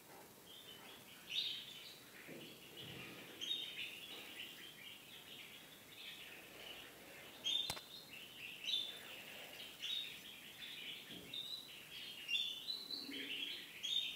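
Spanish timbrado canary nestlings begging with high, thin chirps in repeated bouts as they are hand-fed from a syringe. One sharp click comes just past the middle.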